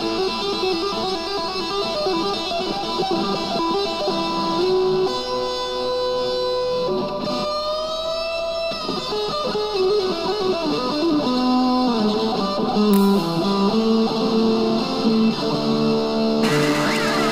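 Instrumental music: a melody of held notes over chords, with a rising slide in pitch about eight seconds in and a brighter, busier sound near the end.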